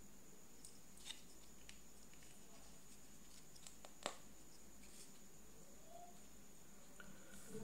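Near silence: quiet room tone with a faint steady high whine and a few faint clicks from fingers handling the speaker's circuit board and battery wire, the sharpest about four seconds in.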